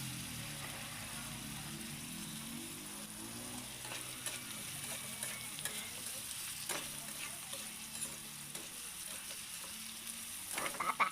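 Food sizzling in a hot pan for chicken adobo while it is stirred, with scattered clacks and scrapes of the spatula and a louder cluster of them near the end.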